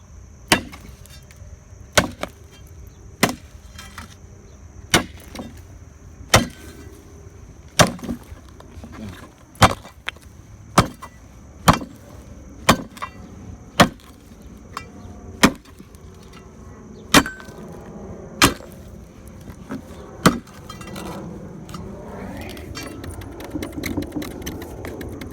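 Hammer blows striking the concrete footing on a pulled vinyl fence post to break it away, about sixteen sharp strikes roughly a second apart. The blows stop about twenty seconds in.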